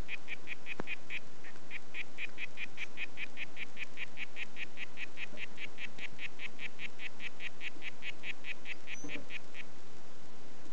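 Harlequin poison frog (Oophaga histrionica) calling: a long, steady series of short, fairly high notes, about five a second, with a brief break near the start, stopping about a second before the end.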